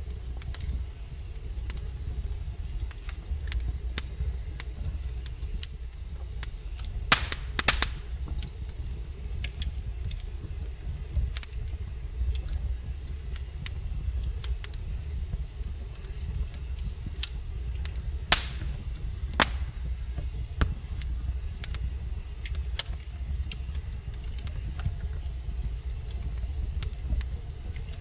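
Wood logs burning in a fireplace, crackling with frequent sharp pops over a low steady rumble. There is a quick cluster of pops about a quarter of the way in, and two louder pops about a second apart just past the middle.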